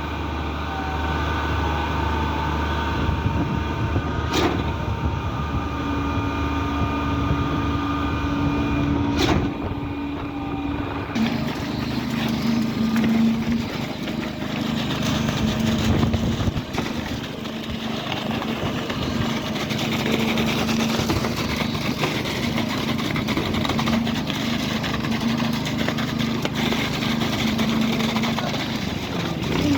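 Heavy truck engine running steadily, with two sharp clicks in the first ten seconds and a shift in its tone about eleven seconds in.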